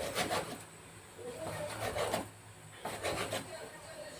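Chef's knife slicing through raw beef and scraping and knocking on a wooden cutting board, in several separate strokes.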